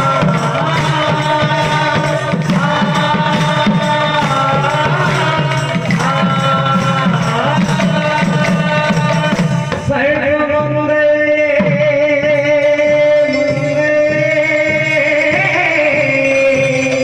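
Odia Malipali kirtan music: singing over khol barrel drums with fast, bright percussion strokes. About ten seconds in, the percussion drops out and a lone voice holds a long, slowly wavering aalap note that rises near the end.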